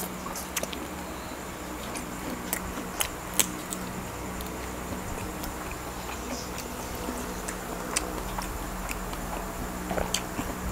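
Chewing a garlic-fried prawn close to the microphone, with scattered wet mouth clicks and smacks over a steady low hum.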